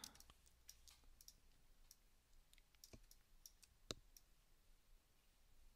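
Faint, scattered computer mouse clicks, about a dozen, two of them a little louder about three and four seconds in, over near silence.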